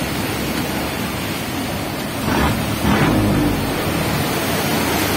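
Breaking surf and foaming water rushing around a boat's hull, with a louder surge of a wave about two and a half seconds in.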